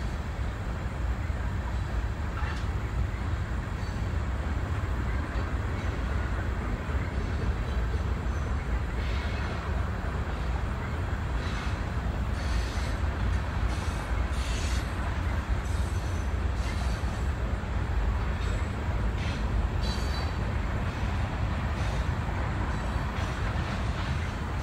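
Train cars rolling past, a steady low rumble of wheels on rail, with scattered short squeaks and clicks through the middle.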